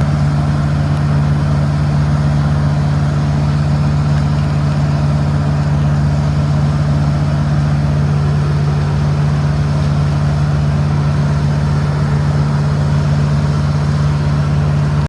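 An engine running steadily at one constant speed, a strong even hum with no change in pitch.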